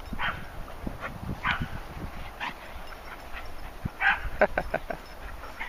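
Dogs barking: single barks spaced about a second apart, then a quick run of four or five barks a little past four seconds in.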